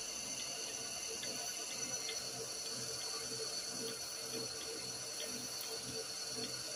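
A workshop machine running steadily: a constant hum with a high hiss over it and faint light ticks.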